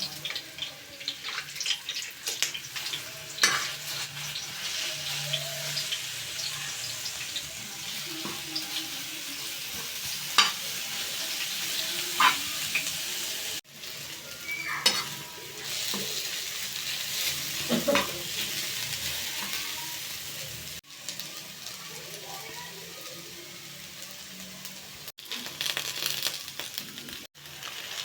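Food frying in hot oil in a pan, a steady sizzle, with a utensil stirring and scraping against the pan now and then. The sound drops out briefly a few times.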